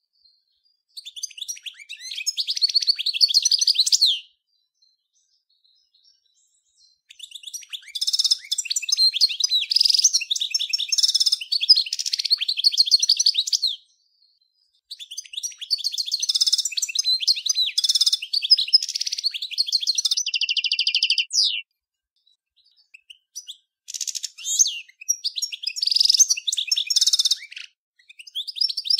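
European goldfinch of the large 'Major' race singing: four long phrases of rapid, high twittering and trills with short silent gaps between them, the third phrase ending in a buzzy note.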